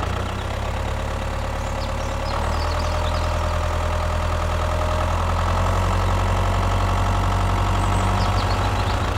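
A mini machine's engine running steadily, picking up and growing a little louder about two and a half seconds in.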